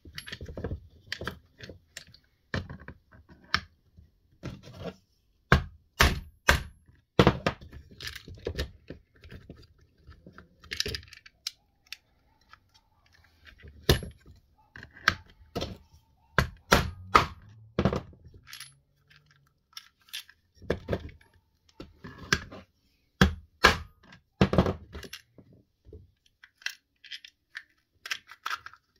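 Irregular sharp clicks, knocks and clinks of small hard parts and hand tools being handled while working on a Spinlock XA rope clutch, with a brief lull about halfway through.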